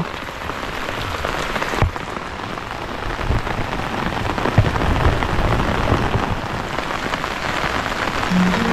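Heavy rain falling steadily, a dense even hiss with scattered louder drops and one sharp thud about two seconds in.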